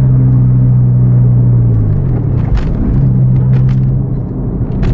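Car engine and road noise heard inside the car's cabin: a steady low drone that sags in pitch about two seconds in and picks up again a second later.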